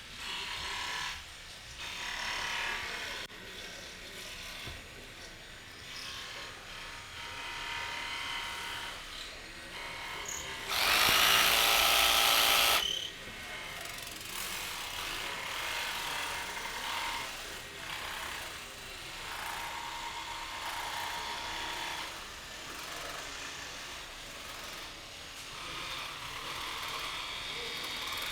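Electric jigsaws cutting wood, several of them running in stops and starts at a distance, with one close by running loudly for about two seconds near the middle.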